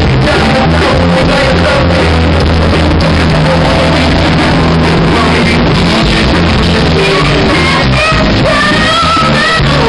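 Live rock band playing: electric keyboard, electric guitar and drums, recorded loud and distorted. A singing voice comes in over the last few seconds.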